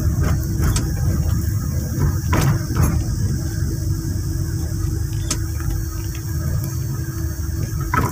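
Vehicle engine running with a steady low rumble, with a few short sharp clicks and knocks in traffic.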